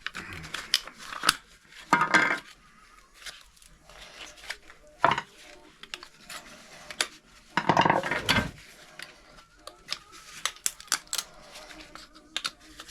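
Hand tools clinking and cracking against power adapters being broken open for scrap: scattered clicks and knocks, with a few louder cracks, the longest about eight seconds in.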